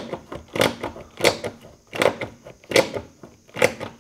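Hammer blows, about six sharp strikes in a steady rhythm, roughly one every two-thirds of a second.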